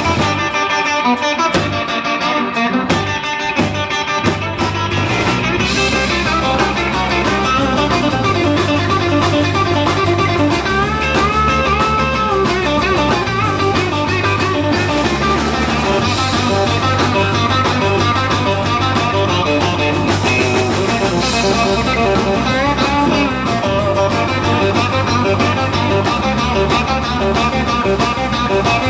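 Live rock band playing an instrumental break with electric guitar out front. For the first few seconds the guitar plays near-alone in short hits, then bass and drums come in full about five seconds in, with the lead guitar bending notes over them.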